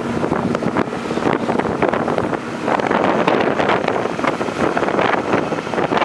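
Heavy wind buffeting the microphone over the rush of water from a boat under way at speed, gusty and uneven, louder from about halfway through.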